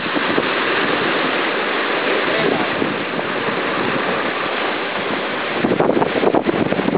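Wind and choppy waves rushing past a sailing yacht under way in rough water: a steady hiss of spray and wind. About five and a half seconds in, it turns to heavier, gusty wind buffeting on the microphone.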